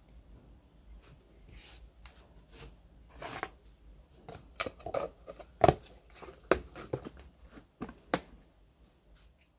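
Plastic lid being pressed down onto a plastic bucket, snapping onto the rim in a series of sharp clicks and knocks over several seconds.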